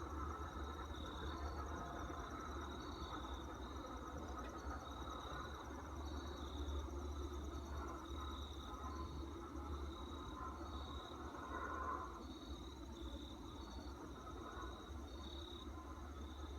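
Insects chirping steadily, with a high chirp repeating about every second and a finer pulsing trill above it, over a steady low hum.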